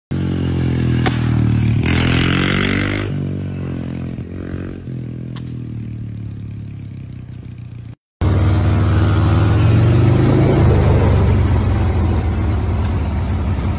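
Motorcycle engines revving, the pitch rising and falling, with a short burst of noise about two seconds in. The sound drops out briefly about eight seconds in, then another engine runs loud, its pitch rising.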